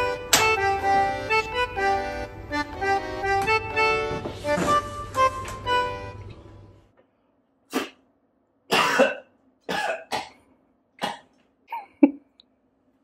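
Background music with quick, bright notes that stops about seven seconds in. It is followed by about six short, separate throaty bursts from a person, like coughs, with silence between them.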